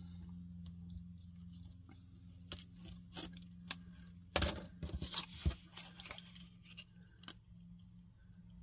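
Hands working kraft cardstock and a bead-handled pick on a cutting mat: scattered light clicks and taps, the loudest a sharp clatter about four and a half seconds in as the beaded pick is put down, then soft taps as the card flap is pressed into place.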